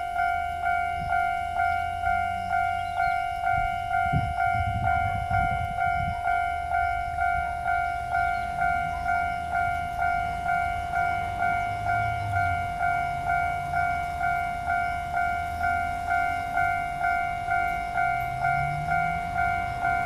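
Level-crossing warning bell ringing steadily at about two electronic dings a second, signalling that a train is approaching and the barriers are down. A brief low rumble comes in about four to six seconds in.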